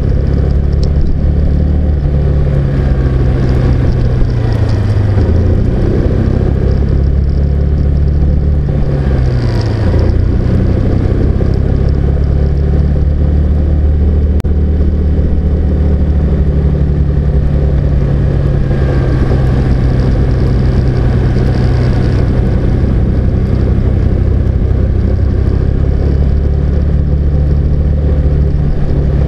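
Car engine running steadily over road noise while driving. The engine note drops twice, about five and ten seconds in, then holds steady.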